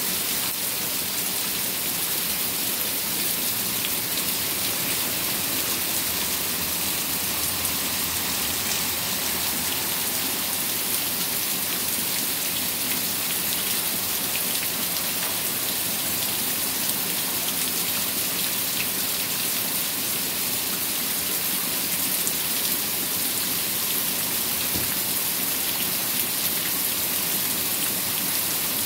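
Heavy rain pouring down steadily onto a waterlogged lawn, sidewalk and street: an even, dense hiss with scattered sharper drop hits.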